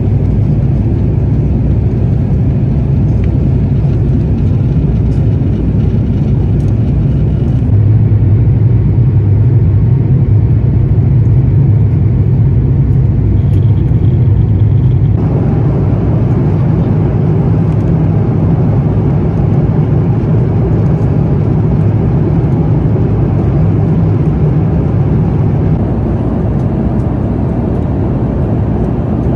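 Steady in-flight cabin noise of an Airbus A350-1000 in its climb, heard at a window seat: engine and airflow noise with a deep hum under a broad rush. It gets a little louder about eight seconds in and changes tone about halfway through.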